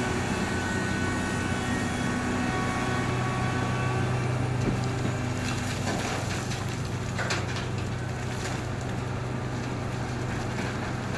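Heavy diesel mining machinery running steadily with a deep engine drone. A few sharp clatters come in the second half.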